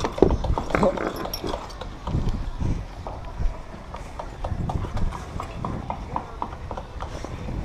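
Climbing harness, rope and gear knocking and clicking as a person goes up a sailing yacht's mast. The knocks come unevenly at first, then turn into a run of light, fairly regular clicks, about three a second, in the second half.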